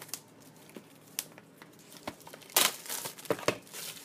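Cardboard retail box of a small USB wall charger being handled and opened: a few light taps, then a loud crinkling, tearing rustle about two and a half seconds in that lasts about a second.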